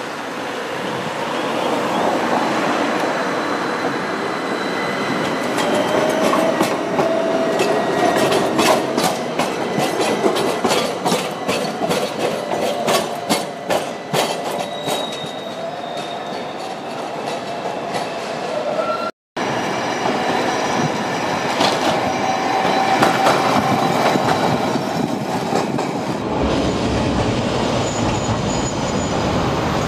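Milan trams running on street track, their steel wheels squealing and clicking in a rapid run over rail joints and switches. A vintage tram passes near the end.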